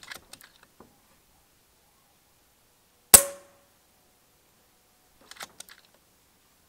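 A single shot from an FX Panthera .25-calibre regulated PCP air rifle about three seconds in: one sharp crack with a brief ring after it. A few light clicks follow near the end.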